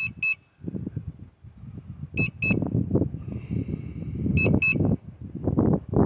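Drone remote controller sounding its return-to-home alert: a high double beep repeating about every two seconds, four pairs in all, while the Hubsan Zino Mini Pro flies itself home.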